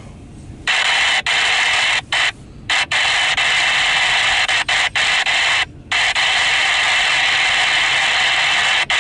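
Radio scanner hissing with static: a loud, even rush that cuts out abruptly several times and comes straight back.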